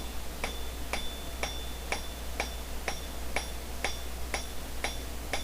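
Rounding hammer striking hot 1/2-inch round steel bar on an anvil at an even pace, about two blows a second, each with a short bright ring. The blows are spreading and thinning the metal along one edge of the bar to tighten a scroll's curve.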